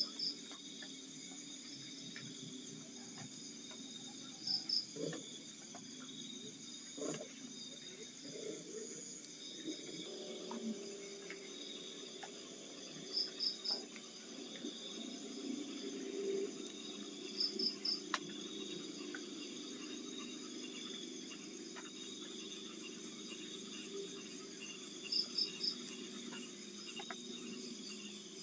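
Insects trilling in a steady high tone, with short groups of two or three chirps every several seconds over a faint low background murmur.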